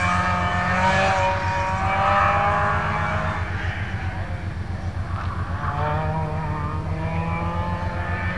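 Volkswagen Golf hatchback driven hard through a cone slalom, its engine running at high revs with a fast low pulse. Its tyres squeal in two long stretches, one in the first few seconds and another from about five and a half seconds in, as it turns between the cones.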